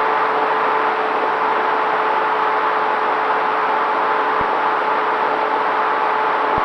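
Dynam T-28 Trojan RC plane's electric motor and propeller in flight, heard from its onboard camera: a steady whine at even throttle over loud wind rush.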